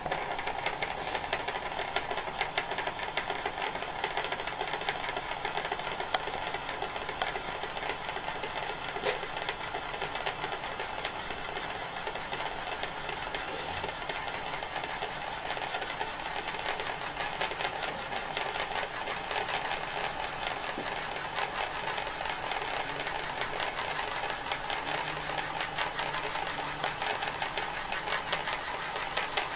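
Stainless steel ring spinning on a glass desktop, its edge making a fast, steady metallic rattle of rapid clicks against the glass as it spins and wobbles.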